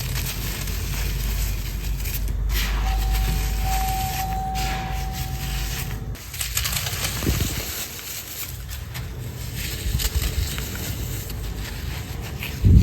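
Dry sand-cement crumbling and crunching, with continuous crackling and scraping. A steady tone sounds from about three to six seconds in, and a loud thump comes right at the end.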